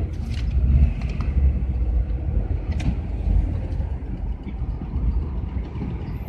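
Steady low rumble of a GAZelle van's engine and tyres, heard from inside the cab while it drives through town, with a few light clicks.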